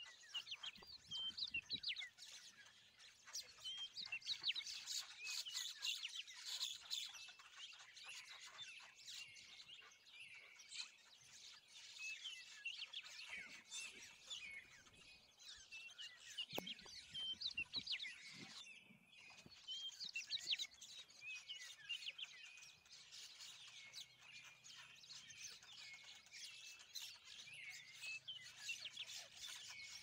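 Many small birds chirping and calling at once, a dense, continuous chatter of short high notes and quick whistled sweeps, with a brief break about two-thirds of the way through.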